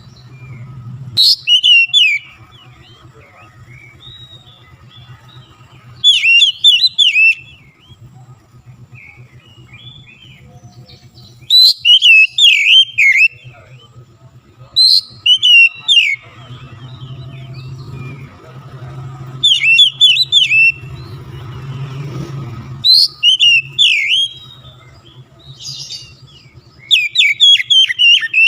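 Oriental magpie-robin (kacer) singing: short loud phrases of rapid, sweeping up-and-down notes, one about every three to five seconds, seven in all.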